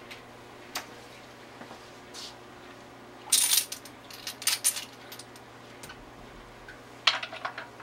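Small glass test tubes clinking and rattling against one another as they are handled and rinsed: a single click near the start, then three short bursts of clinking from the middle to near the end.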